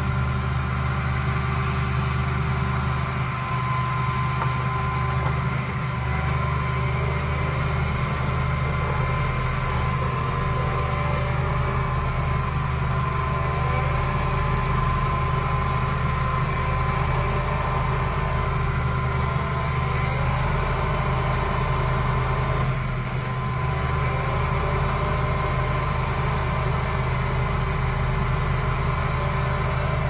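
Excavator-mounted hydraulic vibratory pile driver running as it drives a pile: a steady, heavy low drone with a constant whine above it.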